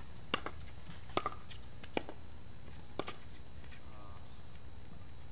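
Pickleball paddles striking a hard plastic pickleball in a rally: four sharp pocks about a second apart, the second followed at once by a lighter tap.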